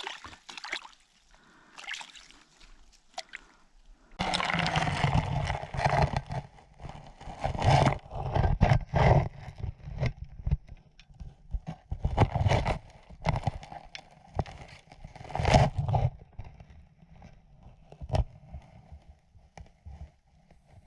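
Water sloshing and gurgling in irregular surges, growing louder about four seconds in.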